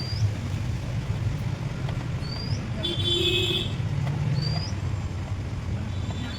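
A steady low engine hum, with a short rising chirp that repeats about every two seconds and a brief higher warble about three seconds in.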